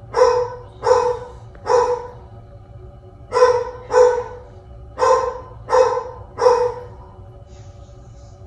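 A dog barking: three barks, a short pause, then five more.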